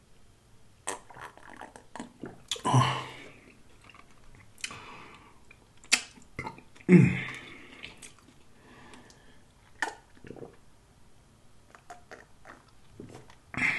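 Close-miked mouth sounds of a man drinking iced water from a plastic cup: gulps and swallows with scattered short clicks, and a loud voiced exhale about halfway through, between two drinks.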